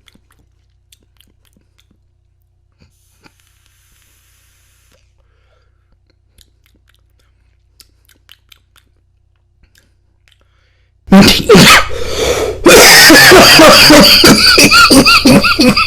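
Quiet with faint scattered clicks, then about eleven seconds in a person breaks into a loud, hacking coughing fit that runs on in repeated bursts. The coughing is set off by a deep lung hit.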